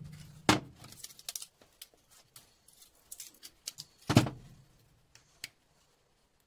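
Metal clinks and knocks from scrap being handled on a workbench: a sharp knock about half a second in, scattered light clicks, and a heavier knock about four seconds in.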